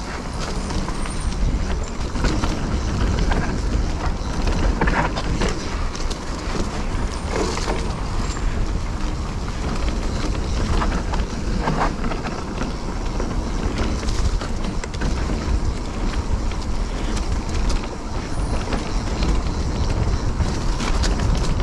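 Specialized Stumpjumper Evo Pro mountain bike ridden along a dirt trail: tyres rolling on the ground, with the chain and frame clicking and rattling over bumps. Steady wind rumble on the camera's microphone runs under it.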